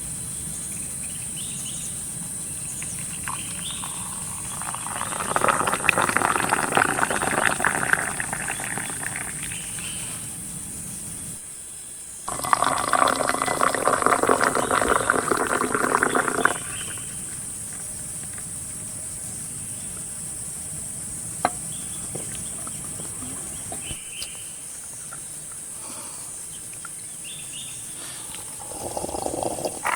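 Insect chorus in forest, a steady high-pitched drone, interrupted twice by louder noisy stretches of several seconds each, one about five seconds in and one about twelve seconds in.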